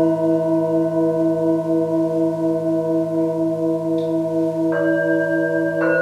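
Several metal singing bowls ringing together in long sustained tones, the main tone wavering in a pulse of about four beats a second. Two more bowls are struck near the end, each adding a higher tone over the rest.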